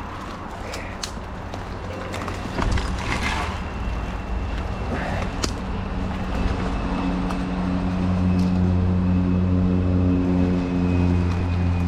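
A motor vehicle's engine running close by: a steady low hum that comes in about halfway through and grows louder toward the end. Scattered clicks and rattles come before it.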